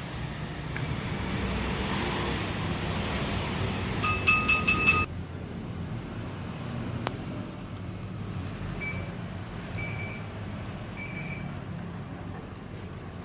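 A quick run of five loud electronic beeps about four seconds in, over a steady low hum and noise. A few faint, short high beeps follow later.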